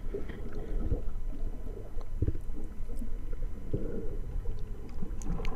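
Underwater sound picked up by a GoPro action camera in its housing: low, muffled gurgling and sloshing of water moving around the camera, with a few faint clicks.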